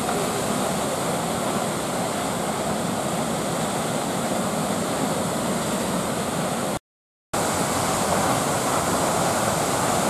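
The 40 m high Düden Waterfall rushing steadily as it plunges off a cliff into the sea. The sound cuts out completely for about half a second around two-thirds of the way through.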